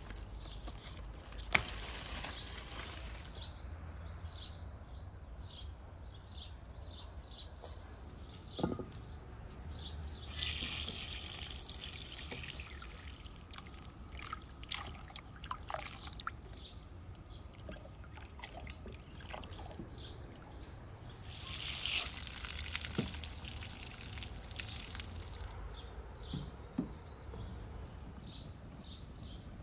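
One sharp snip of scissors cutting a bunch of grapes from the vine near the start. Then water sloshing and splashing as grapes are washed by hand in a basin, with many small splashes and two louder spells of splashing or pouring water, each a few seconds long.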